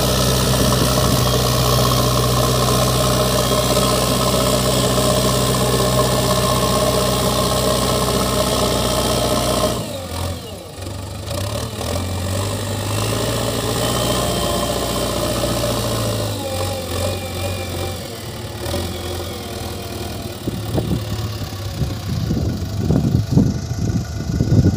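JCB backhoe loader's diesel engine running as the machine digs soil with its front loader bucket and lifts it. The engine note drops and changes about ten seconds in and eases further later on. There are uneven thumps near the end.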